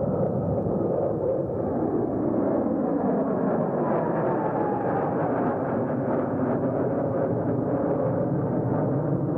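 Jet noise from three F-4 Phantom IIs flying past in formation, their J79 turbojets making a steady, heavy rumble with a faint falling whine about halfway through.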